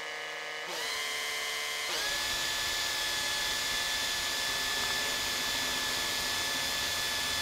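Makita 18V cordless drill driver spinning a screw into the plastic base of a ceiling light fitting, which has no pre-drilled hole. The motor whine steps up in pitch twice in the first two seconds as the trigger is squeezed harder, then runs steady at high speed.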